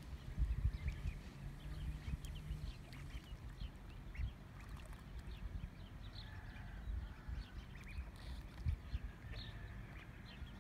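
Ducklings peeping in many short, high chirps, scattered throughout, over a low rumble.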